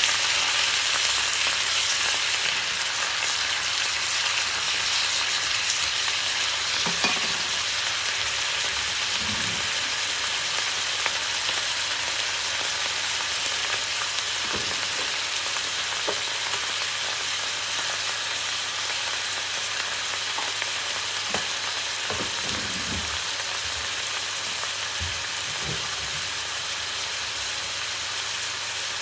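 Mustard greens stir-frying in a pan: a steady sizzle that slowly quietens, with a few scattered knocks and scrapes from stirring.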